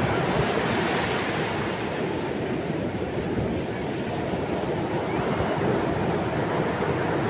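Ocean surf breaking on the shore, a steady rushing wash that eases slightly about three seconds in and then swells again.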